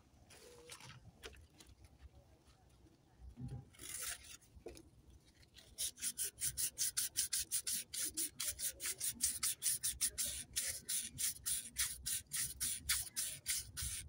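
Hand scrubbing of small diesel engine parts in a parts-washing tray. Faint rustling at first, then from about six seconds in, a rapid, even rhythm of short scrubbing strokes, about five a second.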